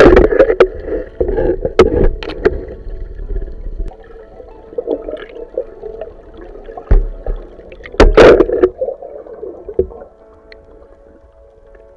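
Water splashing and sloshing close to the microphone in irregular loud bursts, heaviest at the start and again about eight seconds in, then dying down near the end.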